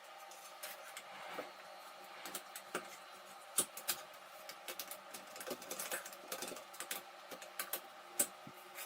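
Irregular light clicks and short scrapes of a metal spreader working body filler, the taps coming at uneven intervals over a faint steady hum.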